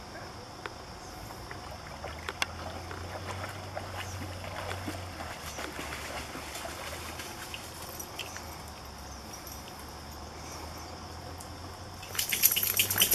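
A dog wading through shallow pond water with light splashing and dripping, then, about a second before the end, shaking its wet coat: a sudden, loud spray of water flung off the fur.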